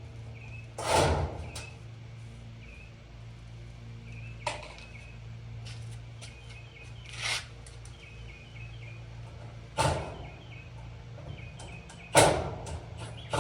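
Scattered clanks and scrapes, about five in all, the loudest near the start and near the end, from hand work on an old stove's metal body, over a steady low hum. Small birds chirp in the background.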